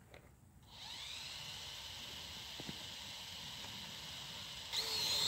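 Venom Pro GPS quadcopter's electric motors and propellers starting up after being armed with the stick combination: a whine that rises in pitch about a second in, then runs steadily, and grows louder near the end.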